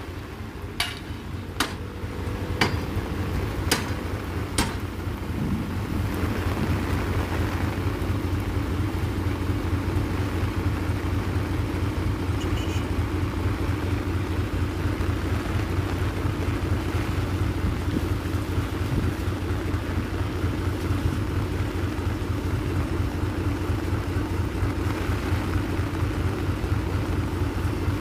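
Mitsubishi Fuso dump truck's diesel engine running steadily, growing louder about five seconds in and holding there. Five sharp knocks come in the first few seconds.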